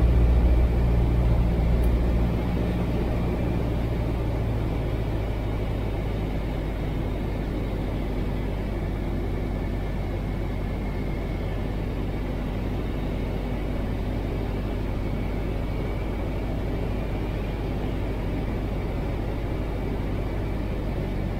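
Piper Tri-Pacer's four-cylinder Lycoming engine and propeller droning steadily, heard inside the cabin. The drone is a little louder for about the first two seconds, then settles slightly lower and stays even.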